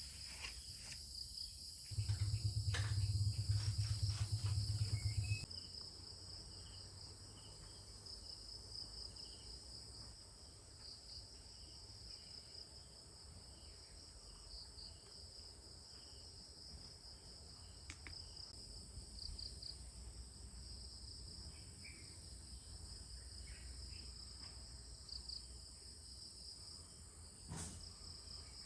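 A steady high-pitched chorus of crickets and other insects chirping in fast pulses. About two seconds in, a low rumble comes in for roughly three and a half seconds, and there is a brief knock near the end.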